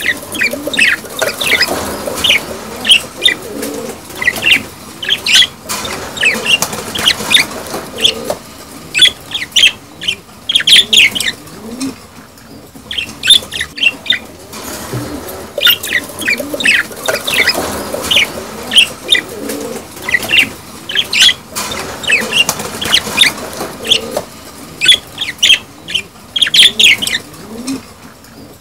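Many budgerigars chattering together: a steady stream of quick, high chirps over a lower warbling. This is the breeding-time chatter of budgies.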